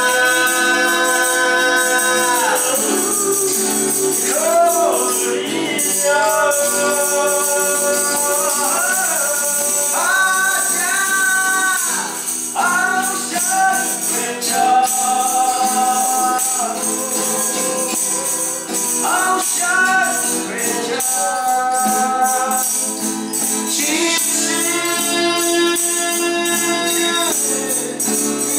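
Male voice singing long held notes, accompanied by acoustic guitars strumming and a tambourine jingling along.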